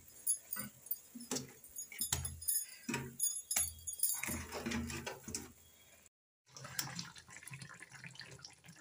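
Soya chaap pieces being dropped one after another into simmering masala gravy in a metal kadhai: irregular plops and splashes with metallic clinks and knocks. The sound cuts out for a moment a little after six seconds.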